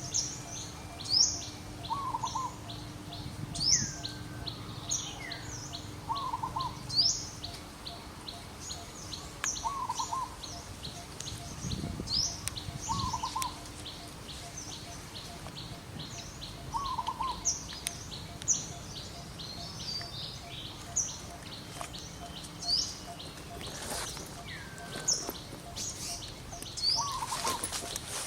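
Birds chirping: short, high, quickly rising chirps every second or so, answered every two to three seconds by a lower warbling call, over a faint steady fast pulsing.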